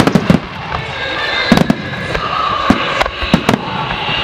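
Aerial firework shells bursting in a run of sharp bangs, about eight in all, several coming in quick clusters, over a continuous din from the display.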